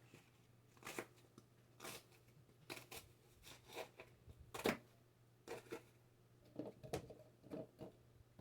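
Light clicks, taps and rustles of ingredients and kitchen items being handled on a counter, about one a second, with the sharpest tap a little past the middle.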